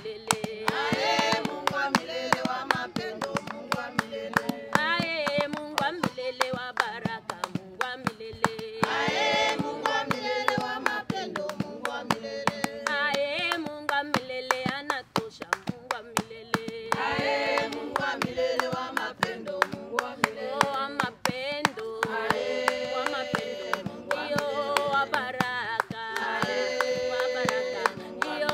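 A congregation singing a Swahili hymn, with steady rhythmic hand-clapping throughout.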